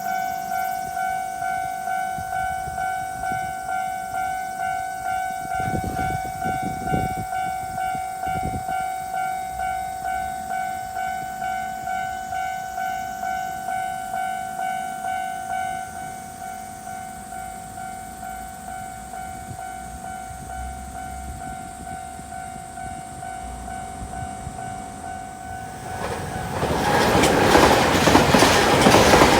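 Japanese level-crossing warning bell ringing: a pulsing electronic ding about twice a second, which drops in level about halfway through. About 26 s in, a Nankai Koya Line train arrives at the crossing, and loud wheel and rail noise takes over.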